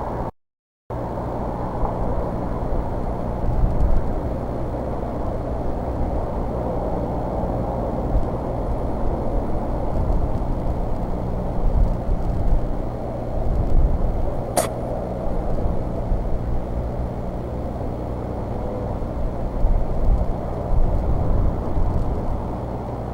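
Steady low outdoor rumble picked up by an eagle nest-cam microphone, with a faint low hum and uneven swells in level. The sound drops out briefly right at the start, and a single sharp click comes about fifteen seconds in.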